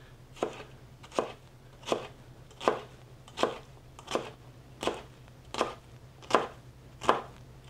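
Chef's knife dicing jalapeño peppers on a plastic cutting board: ten even chops at a steady pace, about one every three-quarters of a second.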